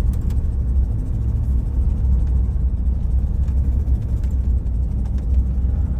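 Car driving, heard from inside the cabin: a steady low rumble of road and engine noise.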